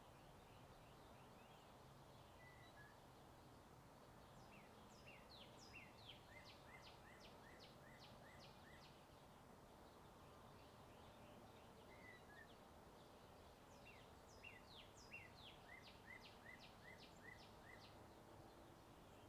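A songbird singing two bouts of quick, downward-sweeping chirps about ten seconds apart, over a faint steady hum of distant highway traffic.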